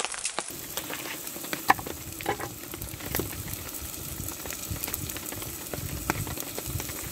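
Sliced shallots, chillies and garlic sizzling in oil in a pot, with many small crackles and pops, starting about half a second in.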